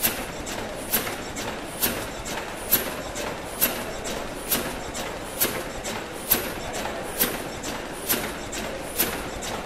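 Steam mill engine running steadily, its valve gear giving a sharp click about once a second, in time with the engine's slow revolutions, over a steady mechanical hum.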